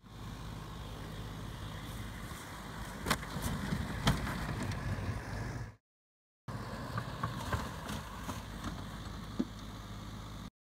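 Six-wheeled Hunter WOLF unmanned ground vehicle's engine running steadily, with two sharp knocks about three and four seconds in. The sound drops out briefly a little past the middle, then the engine hum carries on.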